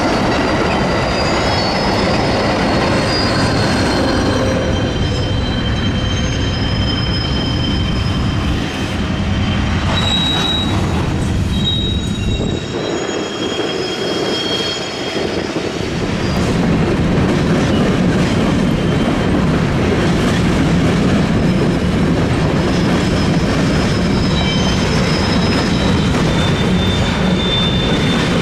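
Trains rolling through a rail yard: a steady rumble of steel wheels on rail with high, drawn-out wheel squeals. About sixteen seconds in, the low rumble grows louder as a freight train of covered hoppers passes close by, still squealing.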